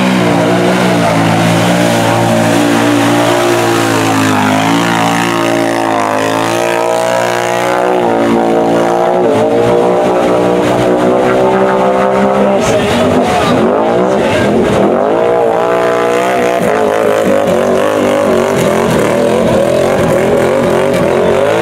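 ATV engine revving hard under load as the machine ploughs through a deep mud hole, its pitch rising and falling as the rider works the throttle, with sharp drops and climbs in revs about two-thirds of the way through.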